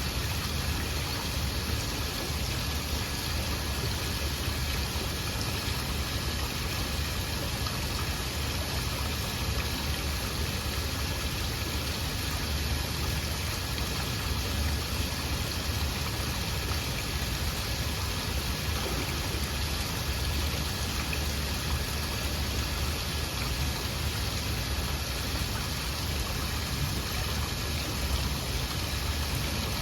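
Waterfall rushing steadily, an even wash of falling water with no breaks or changes.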